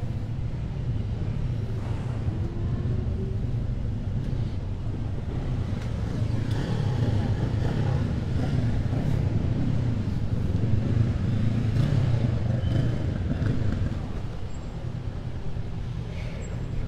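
Vehicle engines running, a steady low rumble that swells a little midway, with faint crowd chatter.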